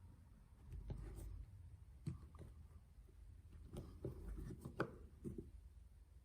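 Faint clicks and scrapes of a hand tool working on a small outboard carburetor body, trying to free a tightly seated part, with a cluster of sharper clicks about four to five seconds in.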